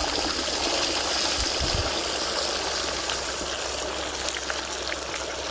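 Steady rush of water pouring from an electric farm pump set, with the pump motor's low hum underneath.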